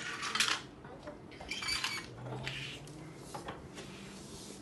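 Small plastic dollhouse furniture and pieces clattering and rustling as they are handled, in a few short bursts about half a second to a second apart.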